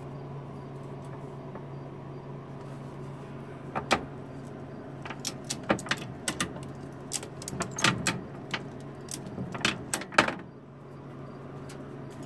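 A run of sharp, irregular knocks and rattles, well over a dozen across about six seconds, from the chicken and the man's hands knocking about in the glass snake enclosure, over a steady low hum.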